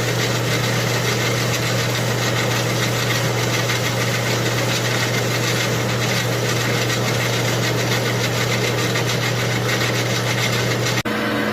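Chainsaw engine running at a steady speed, loud and even. Near the end it breaks off abruptly into a different steady, higher-pitched running sound.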